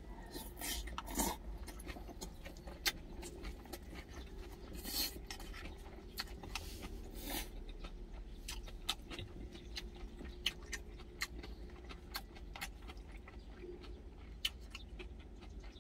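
Someone eating from a stainless-steel bowl: chewing, with scattered clicks and a few short scrapes of a spoon and chopsticks against the bowl, over a steady low hum.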